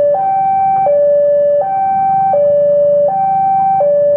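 Railway level-crossing warning alarm sounding a two-tone hi-lo signal, switching between a lower and a higher tone about every three-quarters of a second. Under it runs the low rumble of a diesel locomotive's engine, which grows stronger about two seconds in.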